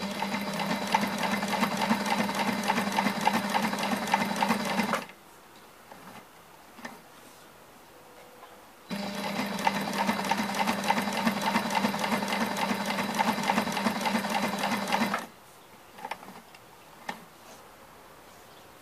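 Sailrite Ultrafeed industrial walking-foot sewing machine, motor-driven, stitching through leather at a steady pace. It makes two runs, one of about five seconds and one of about six, each a steady hum with rapid needle strokes. Between and after them come a few small clicks as the work is handled.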